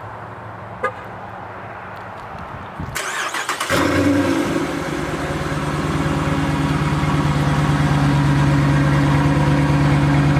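Muffler-deleted Dodge Charger R/T 5.7-litre Hemi V8 remote-started by key fob. A short beep sounds about a second in, the starter cranks briefly about three seconds in, and the engine catches with a flare just before four seconds. It then settles into a loud, steady idle.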